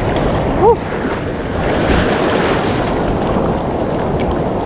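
Surf washing and foaming around the shallows, with wind buffeting the microphone. A short rising voice sound breaks in just under a second in.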